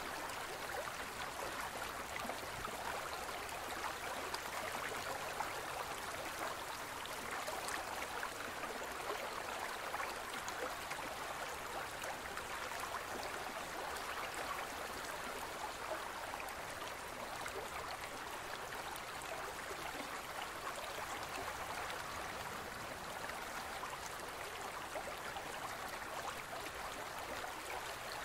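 A gentle stream running steadily: an even, unbroken rush of trickling and splashing water.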